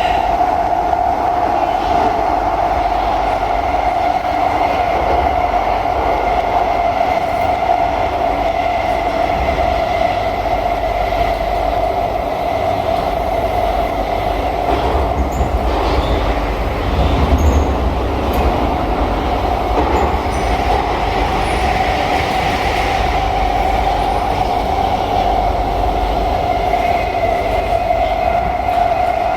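Interior noise of an SMRT C151B metro train on the move: a steady rumble of wheels on the rails with a constant whine running underneath.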